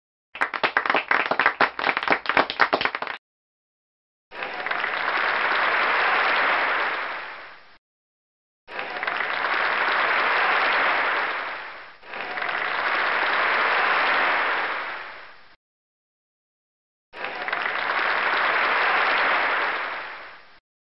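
Applause: first about three seconds of rapid separate hand claps, then four swells of crowd clapping, each rising and fading away over about three and a half seconds, with dead silence between them.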